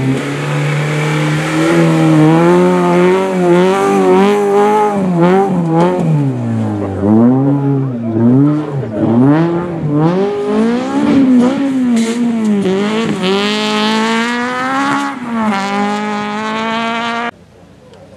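Honda Civic rally car engine revving up and down over and over as the car drives across a soft grass field after going off the stage. The engine sound drops away suddenly about a second before the end.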